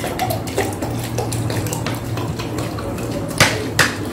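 Close-up eating sounds: wet chewing and smacking of crispy pata in kare-kare sauce, with small clinks of a fork against plates and two sharper clacks about three and a half seconds in, over a steady low hum.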